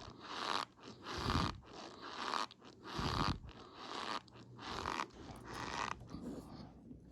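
Close-up mouth eating sounds: a person chewing and biting quickly with a mouthful of food, a string of crunchy, squeaky smacks, some with a low thump, about one or two a second, fading near the end.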